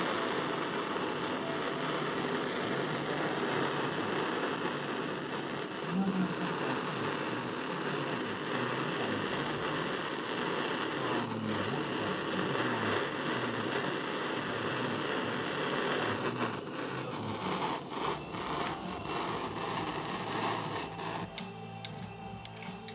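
Gas soldering torch flame burning with a steady rushing hiss while heating a silver buckle to flow the solder. The flame cuts off about twenty seconds in, with a few light clicks shortly before.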